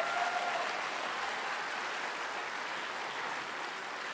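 Arena crowd applauding steadily, the applause slowly dying down. A single short held call from someone in the crowd sounds over it at the very start.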